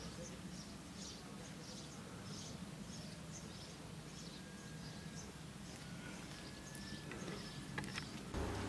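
Small birds chirping in quick, short, high notes repeated over and over, over a faint steady low hum.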